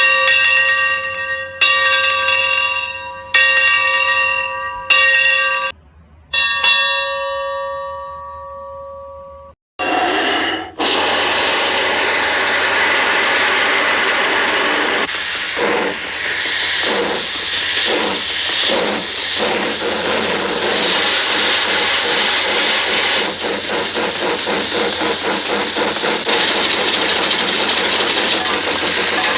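Locomotive bell struck four times about a second and a half apart, then once more and left ringing out for several seconds. From about ten seconds in, a cartoon steam locomotive (Casey Jr.) hisses steam loudly and steadily with chugging.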